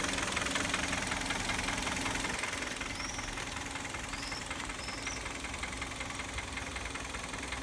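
Kia Sportage's G4KD four-cylinder petrol engine idling warm, with a steady hum and a light, fast ticking knock. The knock is the engine's known fault, here faint after a Hado oil additive.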